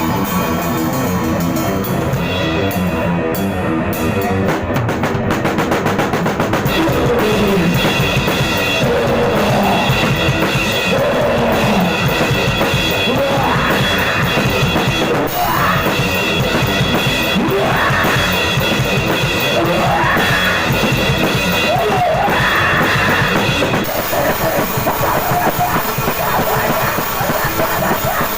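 Loud metal/hardcore punk band music with a pounding drum kit, bass drum and snare, and a repeating figure that sweeps upward about every two seconds through the middle.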